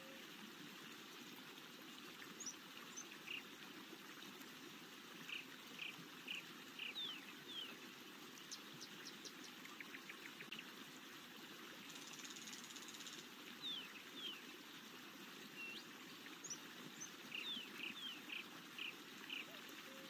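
Quiet forest ambience: small songbirds chirping in short phrases of quick notes and falling whistles over a steady, soft background rush of running water.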